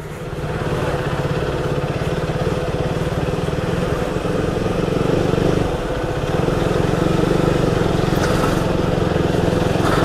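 Motorcycle engine running steadily while being ridden, its fast even pulse heard under a steady rushing noise.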